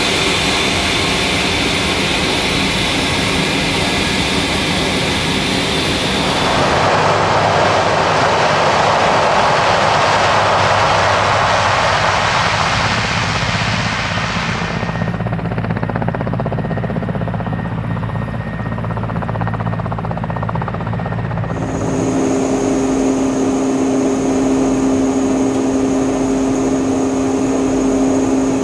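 Four-engine turboprop aircraft (C-130 Hercules) running steadily in a series of shots. The sound changes abruptly about 7, 15 and 22 seconds in, and the last part holds a steady propeller hum with clear tones.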